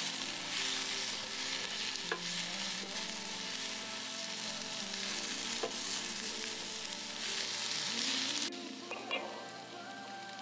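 Vegetables sizzling in a hot nonstick frying pan as they are stirred and tossed with tongs, with a couple of light taps of the tongs against the pan. The sizzle cuts off suddenly a little after eight seconds, followed by a light clink.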